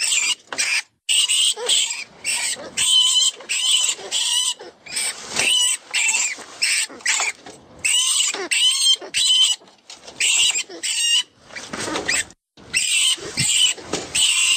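FoxPro rat and rodent distress call, used to lure foxes: frantic high-pitched squeaks and squeals in short, irregular bursts, roughly two a second. About twelve seconds in comes a lower, rougher squeal.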